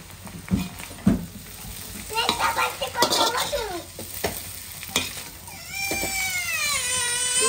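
Metal spatula stirring and tossing noodles in a black iron wok, with sharp knocks of the spatula on the pan and light sizzling. From about two-thirds of the way in, a child's high, drawn-out whining cry rises over it and becomes the loudest sound.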